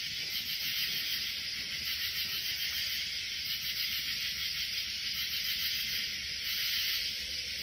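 Katydids stridulating at night: a steady, high-pitched chorus with a fine, even pulsing texture.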